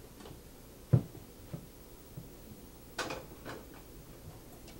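A pot set down on a gas stove's grate: one low knock about a second in, then a short metal clatter about three seconds in.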